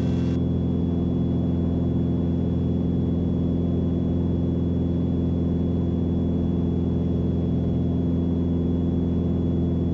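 Mooney's piston engine and propeller running steadily at go-around power as the aircraft climbs away after a bounced landing: an even drone with a stack of steady tones that does not change in pitch or level.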